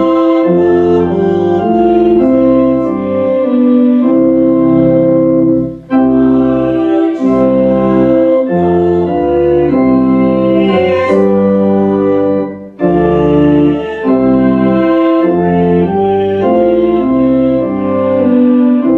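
Church organ playing a hymn in slow, sustained chords, with short breaks between phrases about six or seven seconds apart.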